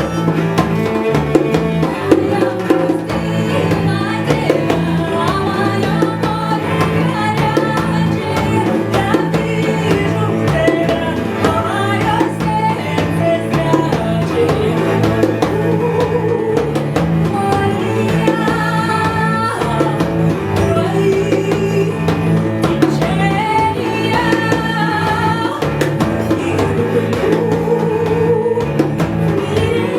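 Live ethno music for two cellos, a woman's voice and djembe: the cellos play a repeating low figure while the woman sings with a wavering vibrato, over steady hand-drum strokes.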